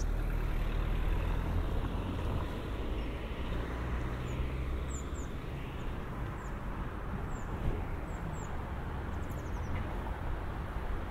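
Street traffic: a car drives past close by, louder in the first couple of seconds, over a steady low rumble of traffic. Short high chirps come now and then.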